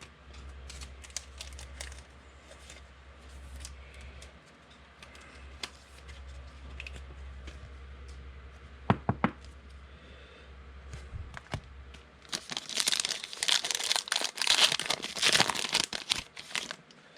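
Foil wrapper of a pack of Panini Contenders basketball trading cards being torn open and crinkled, loudest over the last five seconds. Before that there is card handling with scattered light clicks over a low hum.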